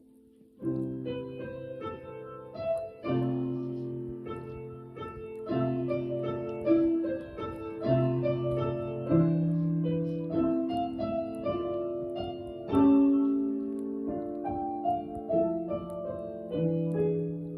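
Piano playing a slow melody over sustained chords, entering about half a second in after near silence.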